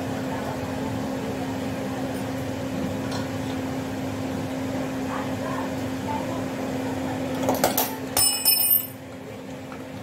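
Samsung inverter refrigerator compressor running with a steady hum while it is charged with refrigerant. About three-quarters of the way through, a short run of metallic clinks and a high ring come from the charging hose and gauge being handled.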